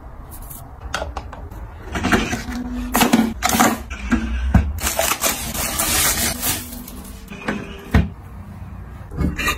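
Close-up handling sounds of bathroom items: a string of clicks, taps and plastic rustles.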